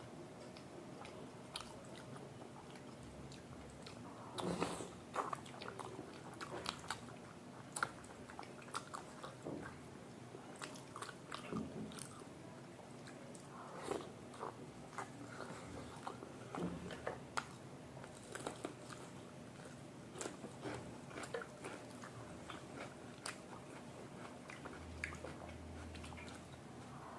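Close-up eating sounds: chewing and biting food, with irregular small clicks, smacks and crunches over a quiet room background.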